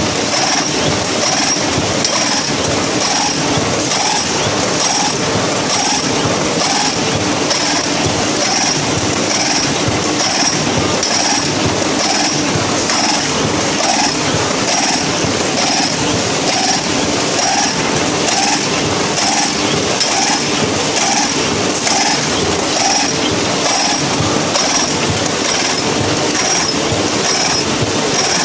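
Curioni 2800NT inline box machine's servo-driven wire stitching section running at production speed: a fast, even rhythm of metallic stitching strokes over a steady machine hum.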